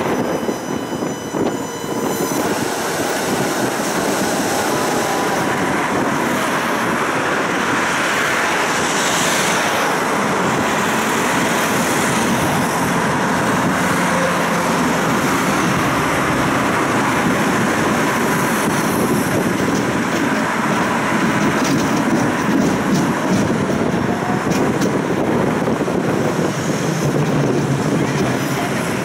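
Budapest city tram running, heard from inside the car: a steady rumble of wheels on the rails with a faint whine.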